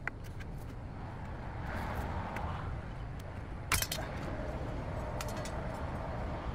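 Chrome window trim being pried off a car's window frame with a hook tool: one sharp metallic click a little before halfway through as a retaining clip lets go, with a few faint ticks, over a low steady background rumble.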